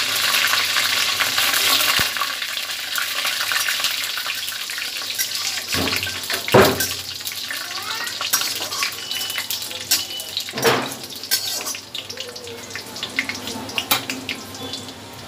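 Fresh curry leaves, dried red chillies and fenugreek seeds spluttering in hot oil in a kadai as a tempering: a dense crackling sizzle, loudest at first and dying down steadily as the leaves crisp. About six and again about eleven seconds in, there are two louder swishes as the leaves are stirred.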